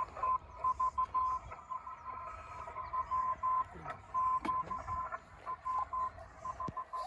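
Morse code (CW) signal received on an HF amateur radio transceiver: a steady beep keyed on and off in dots and dashes over hissing band noise, heard through the radio's speaker.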